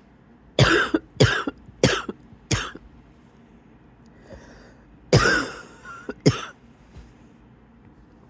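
A person's wheezy cough in fits: four quick coughs, a faint breath in, then a longer cough and one more short one.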